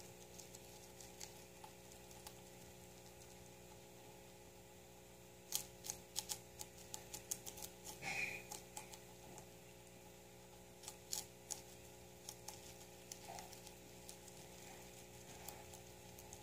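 A guinea pig chewing leafy greens: faint, crisp crunching clicks in quick bursts, a cluster about a third of the way in and another about two-thirds through, over a steady faint hum.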